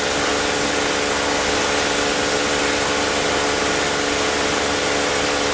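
Water mist fire-extinguishing system spraying inside a glass demonstration case: a steady, loud hiss of fine mist with a steady machine hum underneath.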